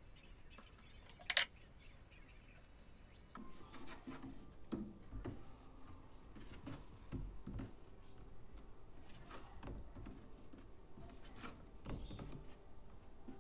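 Rolled logs of feqqas dough set down and shifted by hand on a metal baking tray: scattered soft knocks and rubbing against the tin. A single sharp click about a second in is the loudest sound.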